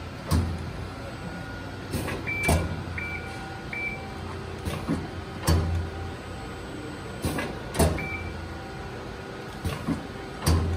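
Amada RG-35S hydraulic CNC press brake running under power, its pump humming steadily while the ram cycles. Sharp clunks come every two to three seconds, each with a brief surge of low hum, and a few short high beeps sound in between.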